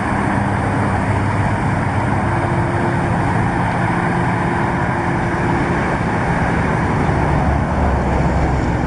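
A vehicle engine running steadily, a constant low hum under an even rumble.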